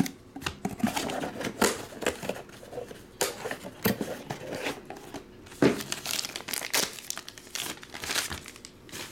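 A small cardboard box being handled and opened, with packaging crinkling and rustling and irregular knocks and scrapes as a cased trading card is taken out; the sharpest knock comes a little past halfway.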